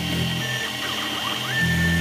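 X2 mini milling machine with its spindle running and an end mill cutting into a graphite-impregnated nylon block, throwing chips. The low motor hum drops away for over a second in the middle, then comes back with a steady high whine about three-quarters of the way in.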